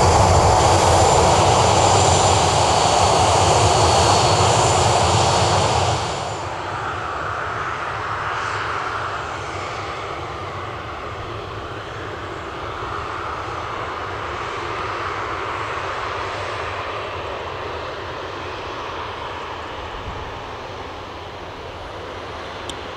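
Boeing 737-800's CFM56-7B jet engines running as the airliner taxis, a steady jet rumble and whine. It is loud and close at first, then drops suddenly about six seconds in to a quieter, more distant steady hum with a faint whine.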